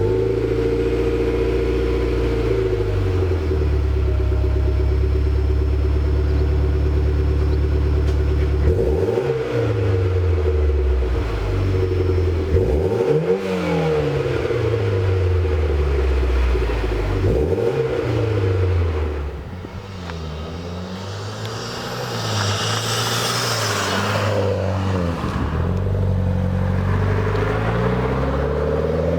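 Mitsubishi Lancer Evolution X's turbocharged 2.0-litre four-cylinder, heard through a COBB cat-back exhaust with dual oval tips. It idles steadily, then is revved three times about four seconds apart, the pitch rising and falling each time, followed by smaller blips of the throttle.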